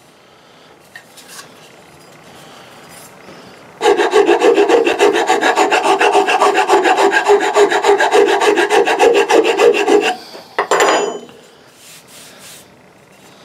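Metal file rasping along a wooden axe handle in quick, rapidly repeated strokes, shaping the wood. It starts about four seconds in and stops about ten seconds in, followed by one short scrape.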